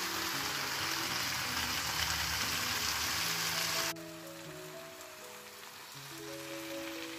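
Potatoes and cauliflower sizzling in a kadhai, a steady hiss under melodic background music. The sizzle cuts off abruptly about four seconds in, leaving the music alone.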